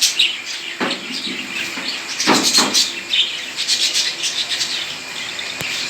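Many pet parrots chirping and calling together in their cages, a constant patter of short high chirps, with two louder, harsher sounds about one second and two and a half seconds in.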